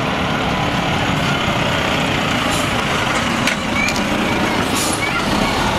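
Diesel engine of a Renault heavy tractor unit running steadily as it pulls a loaded low-loader trailer past close by, a continuous rumble mixed with road noise.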